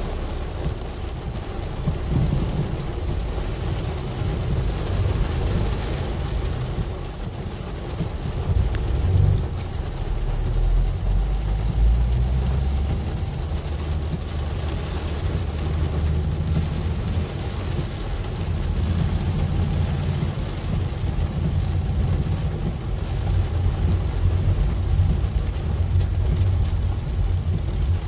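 Heavy rain falling on a car's windshield and roof, heard from inside the cabin, over a steady low rumble from the moving car on the wet road.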